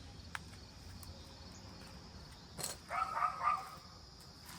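A dog barking three quick times about three seconds in, over a steady high chirring of insects, with a couple of sharp clicks.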